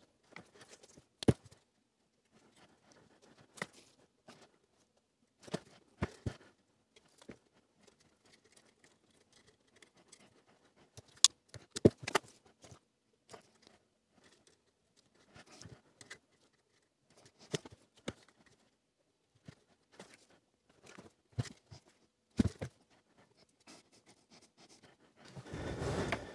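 Small hand-work sounds as wires are cable-tied to the metal uprights of a soldered LED cylinder: scattered light clicks, taps and rustles, with a couple of sharper clicks around the middle and a longer rustle near the end.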